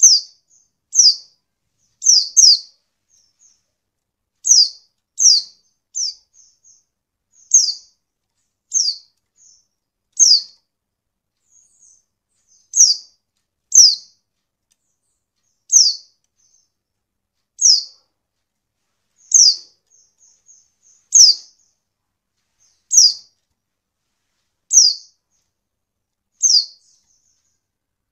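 Female pleci (white-eye) calling: short, high, downward-slurred chirps, one every second or two, with faint softer notes in between. It is the female's call used as a lure to get lazy male pleci to answer and sing.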